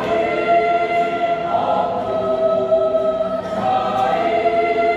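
Women's choir singing long held chords.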